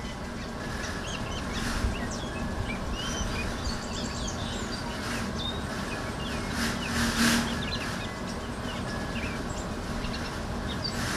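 Small songbirds chirping and twittering around bird feeders, many short calls throughout, over a steady low background rumble. A few brief swishing noises, the loudest about seven seconds in.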